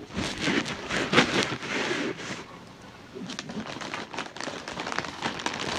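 Eating sounds close to the microphone: chewing with crackling, and a plastic food container rustling as it is handled. The noise is loudest in the first two seconds or so, then thins to scattered clicks and rustles.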